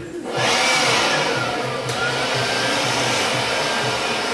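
Heat gun blowing steadily, switched on about half a second in, warming vinyl wrap film so it can be stretched over the wing.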